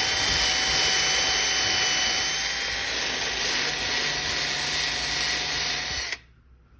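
Power sander running steadily at high speed on a painted clear coat, sanding out drip marks, then switched off and cutting out suddenly about six seconds in.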